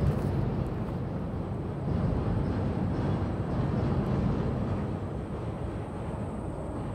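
A loud truck going by, a steady low engine and road rumble that eases slightly near the end.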